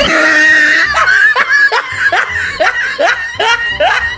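Laughter: a run of short 'ha' syllables, each falling in pitch, about three to four a second.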